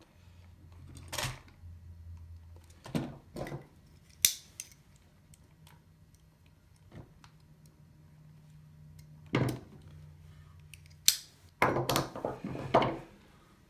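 Wire stripper pliers snipping and clicking at the insulation of small motor wires: a few separate sharp snaps, then a quick cluster of clicks and clatter near the end.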